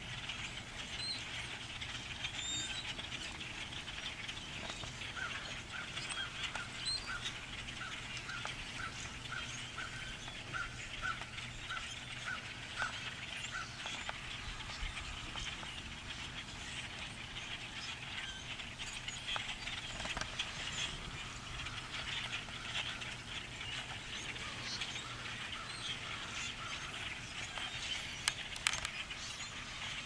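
A huge flock of birds chattering and calling all at once: a dense, unbroken wash of chirps. About five seconds in, one call repeats about a dozen times at an even pace for some eight seconds. A few sharp clicks come near the end.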